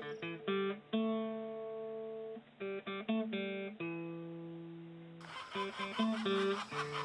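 Acoustic guitar music of plucked notes and held chords that ring and fade. About five seconds in, a denser, noisier layer of sound comes in under the guitar.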